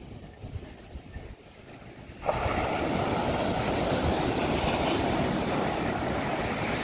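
Ocean surf: low wind rumble, then about two seconds in a wave's break and wash sets in suddenly as a loud, steady hiss.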